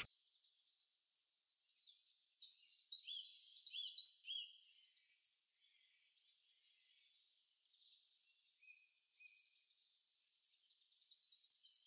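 Small birds chirping, with high, quick notes and rapid trills. The strongest run of trills comes about two seconds in, and another comes near the end.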